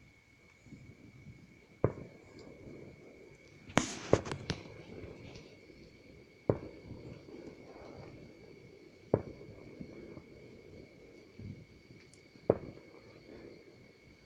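Fireworks going off: single sharp bangs every two to three seconds, with a quick burst of about four pops around four seconds in.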